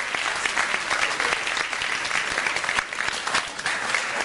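An audience applauding, many hands clapping together in a dense, steady patter.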